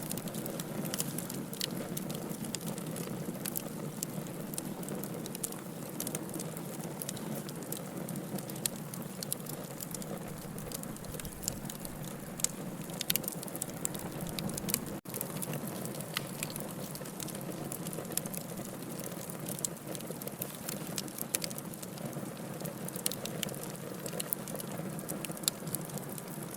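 Wood fire in a fireplace crackling, with frequent sharp pops over a steady low rush of flame. The sound cuts out for a split second about halfway through.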